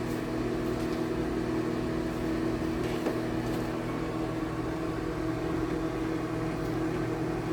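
Steady mechanical hum with several fixed tones, unchanging throughout: the unwanted noise that runs through the whole recording.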